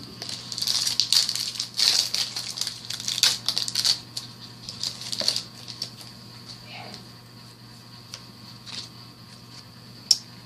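Trading-card booster pack wrapper crinkling and rustling as it is opened, in a run of crackly bursts through the first half, then quieter with a few light clicks.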